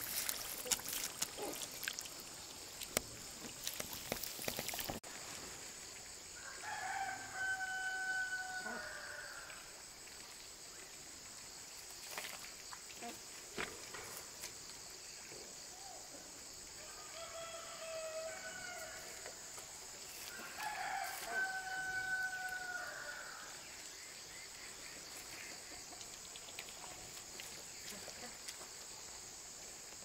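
A rooster crowing three times, each crow about two seconds long and ending in a long held note, with a few sharp clicks in the first few seconds.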